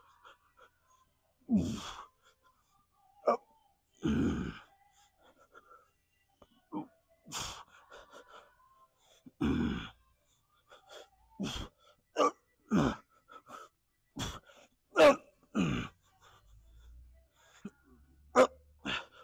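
A man's short, forceful breaths and grunts of effort, one with each rep of a weighted kneeling back exercise. They are spaced every second or two at first and come closer together in the second half.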